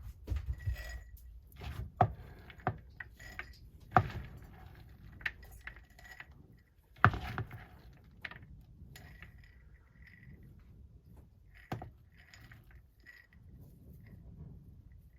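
Scattered clinks and knocks of mason jars and their metal lids being handled, with a few sharp strikes: the loudest about 2, 4 and 7 seconds in, and one more near 12 seconds.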